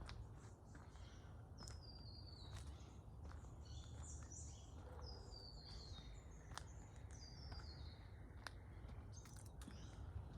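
Honeyeater singing faintly: short, quick runs of notes that step down in pitch, repeated several times, with a few sharp chirps between them.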